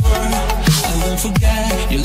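Background electronic dance music with a heavy bass and a steady beat, about one hit every 0.7 seconds, each with a falling bass glide.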